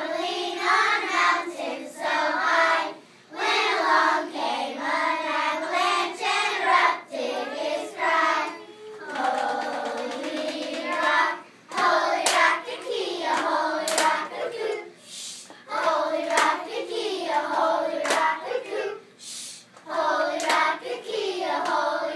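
A group of young children singing a song together, with sharp hand claps here and there, more of them in the second half.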